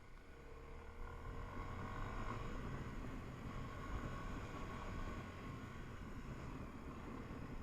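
A vehicle engine running faintly in the distance, its pitch wavering a little, over a low rumble.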